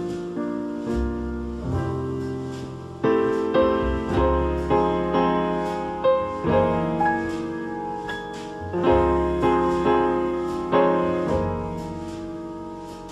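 Background music: solo piano playing slow chords and melody notes, each struck note ringing and fading.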